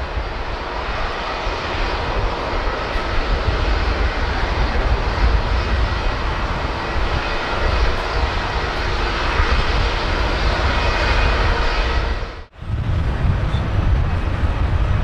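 Rolls-Royce Trent XWB turbofans of an Airbus A350-900 running at taxi power: a steady jet rumble with a faint whine. About twelve seconds in, the sound dips out for a moment and comes back.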